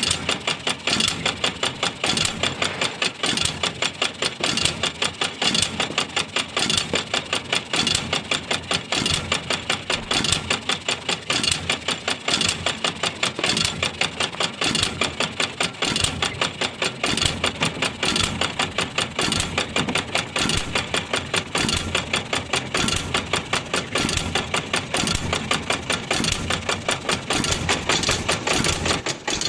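3/4 HP Bluffton hit-and-miss stationary engine running, with a fast, even clatter that goes on without a break.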